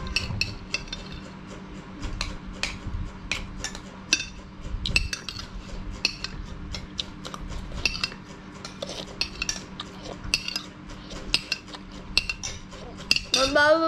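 Metal spoon clinking and scraping against a ceramic plate of rice, in many irregular light clicks. Near the end a cat gives one long, drawn-out meow.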